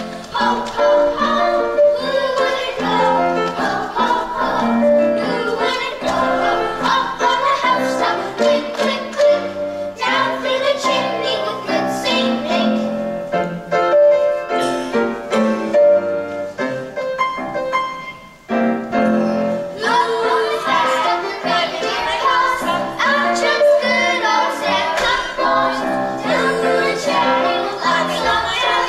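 Group of children singing a musical theatre song together with instrumental accompaniment, with a brief break about two-thirds of the way through.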